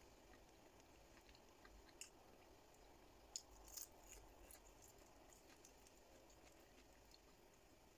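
Faint chewing of a crisp fried spring roll, with a few small crunches and clicks, the loudest a little past three seconds in.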